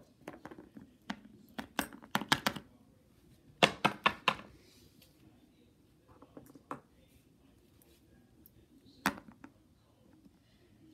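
Small plastic toy figures being handled and set down on a hardcover book: scattered clicks and taps, in quick clusters about two and four seconds in, then single knocks later.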